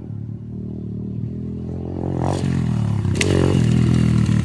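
Small off-road vehicle engine running steadily, growing louder from about two seconds in, with one sharp click a little after three seconds.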